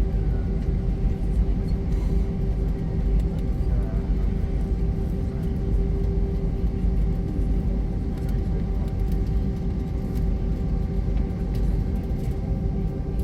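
Steady low rumble and hum inside the cabin of an Airbus A320 on the ground before takeoff, with its jet engines at idle. A few steady tones sit over the rumble, the strongest a mid-pitched hum.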